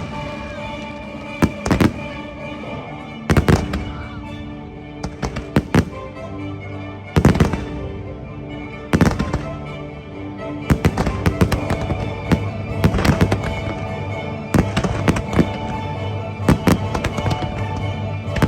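Fireworks bursting, single bangs and quick crackling clusters, over the show's orchestral music soundtrack playing through the park speakers.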